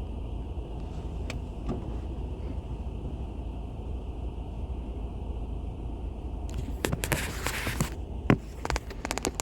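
Strong wind buffeting the microphone in a steady low rumble. About seven seconds in, a louder stretch of rushing, hissing noise lasts a little over a second, followed by a few sharp clicks near the end.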